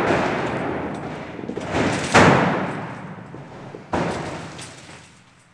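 Dynamite blasts going off in a rock shaft under a shaft cover and blasting mats: the rumble of one blast dies away, then two more sudden booms follow about two seconds apart, each fading over a second or so.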